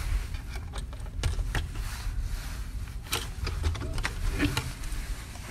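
Hotel room door being unlocked with a key card and opened: a series of clicks and knocks from the electronic lock and metal lever handle, over a low rumble of handling noise.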